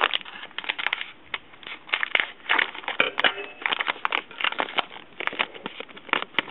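Plastic packaging crinkling and crackling as hands unwrap it, in rapid irregular rustles.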